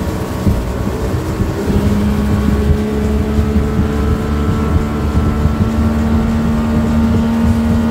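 Motorboat engine running at steady speed under way, with water rushing along the hull; a steady engine tone comes in about two seconds in and holds.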